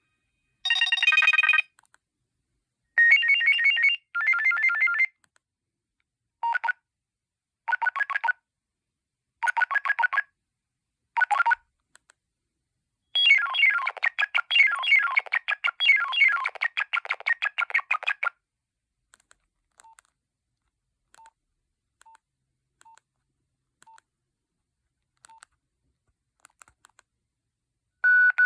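Nokia 2112 mobile phone playing its preloaded electronic ringtones: several short melody snippets of about a second each, then a longer tune lasting about five seconds. After that come faint short beeps roughly once a second, and a louder beep at the very end.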